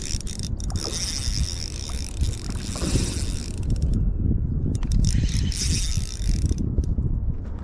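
Spinning reel being cranked to work a jig, its gears whirring in two stretches that stop about four seconds in and again near the end, over wind rumbling on the microphone.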